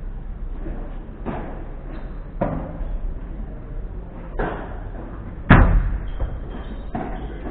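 Padel rally: the ball struck by padel rackets and bouncing, five sharp knocks, the loudest a little past halfway.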